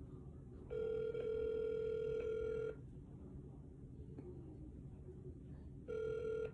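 Telephone ringback tone of an outgoing call not yet answered: one two-second ring about a second in, then a second ring starting near the end after about three seconds of quiet, the standard North American ring cadence.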